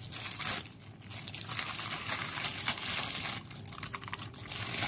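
Wrapping around a new mechanical keyboard crinkling and rustling as it is pulled off by hand, with irregular scrunches and crackles.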